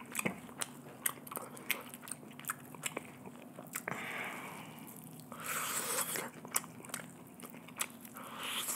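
Close-miked bites and chewing of sauced fried chicken: crunching, with many sharp crackles and clicks and a few longer stretches of wet mouth noise.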